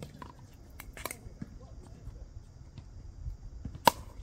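A single sharp crack of a pickleball paddle striking the plastic ball on the serve near the end, the loudest sound. A few fainter ticks come before it.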